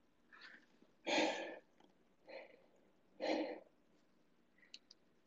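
A person's breathy exhalations: four short puffs of breath about a second apart, the second and fourth the loudest.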